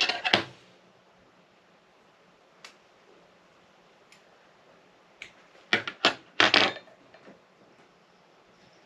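Small handling noises at a jig-tying bench: scattered sharp clicks and short rustles as materials and tools are picked up and handled, with a busier cluster of them a little past halfway.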